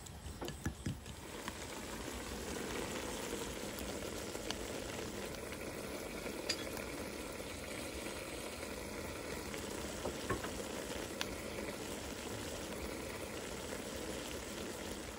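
Snake meat stir-frying in a pan in coconut-milk sauce, sizzling steadily once it builds up after about a second and a half, with a few light clicks.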